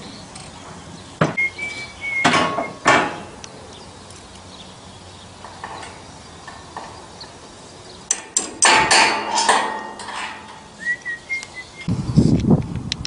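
Sharp metallic knocks and clanks of work on the steel frame of a shed roof: a few strikes in the first three seconds and a quick cluster of them about eight to nine seconds in, with two brief high whines between. Wind buffets the microphone near the end.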